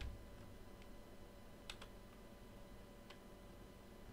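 Near silence: about five faint, sparse clicks of computer controls, the first the loudest, over a faint steady electrical hum.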